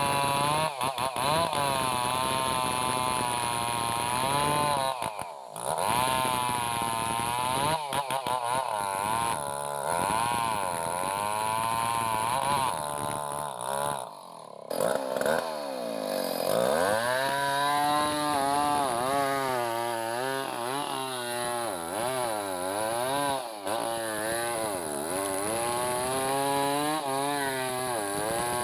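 Two-stroke chainsaw cutting timber logs, its engine pitch wavering up and down as the chain takes and eases off the load. It drops briefly twice, then revs in wide swoops through the second half.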